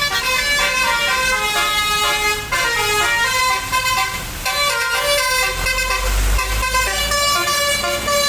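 Bus 'telolet' melody horn (Basuri horn with DAV module) playing a tune: several horn tones sounding together and stepping from note to note every fraction of a second. A low rumble swells briefly about six seconds in.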